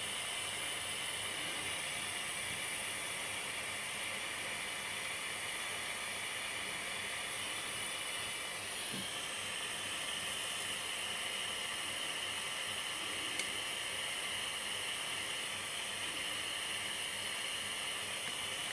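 Butane gas soldering iron hissing steadily while it is held on a joint to melt the solder. The hiss changes slightly about halfway through.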